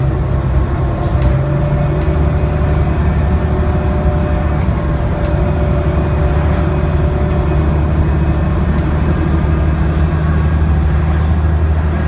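Cummins ISC inline-six diesel of a 1998 New Flyer D40LF transit bus running steadily, heard from inside the cabin near the rear. Its low engine note steps up slightly about a second and a half in.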